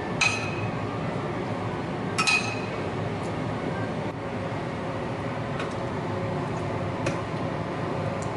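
Metal kitchen tongs clinking against ceramic ramen bowls as toppings are placed: two sharp, ringing clinks about two seconds apart, then a few lighter taps, over steady background noise.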